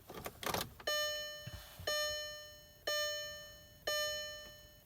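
Volkswagen TDI's dashboard warning chime dinging about once a second, each ding fading away, with a few light clicks just before it starts.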